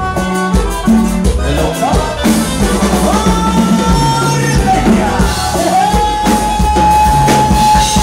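Live norteño band music for dancing: bass and drums keeping a steady beat, with a high note that slides up and is held for about two seconds near the end.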